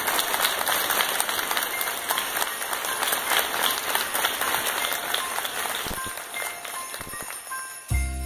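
Audience applauding, the clapping thinning out toward the end. Music comes in just before the end.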